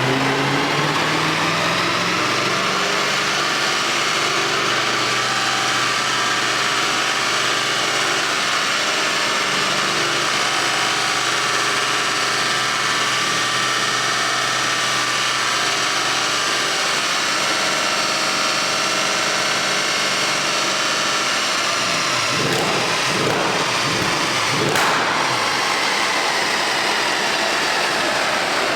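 Stage 2 tuned Mercedes E63 AMG biturbo V8 running loud through an iPE exhaust. Its pitch climbs over the first few seconds and then holds steady at high speed for a long stretch. Toward the end the engine note wavers and sweeps, with a brief sharp crack.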